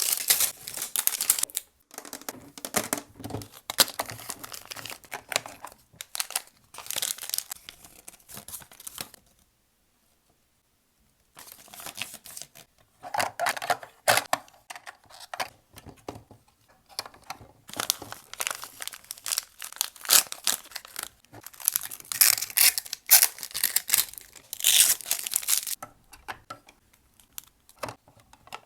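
Packaging being torn open and crinkled by hand in irregular bursts of crackling and ripping, with a pause of about two seconds about a third of the way in and only a few faint clicks near the end.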